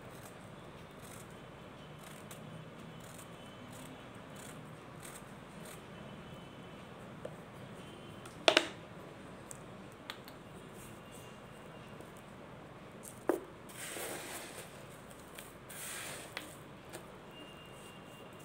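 Solid white mothball cakes being crushed: one sharp crack about halfway through, a second a few seconds later, then two short gritty crumbling rustles.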